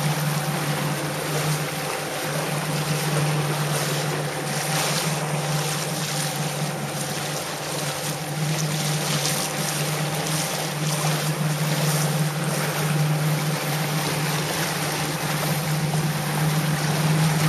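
Jet ski engine running with a steady drone at cruising speed, over a constant rush of water and wind.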